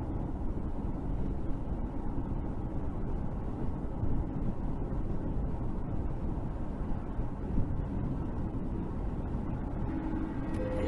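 Steady road and engine noise heard from inside a car moving at highway speed.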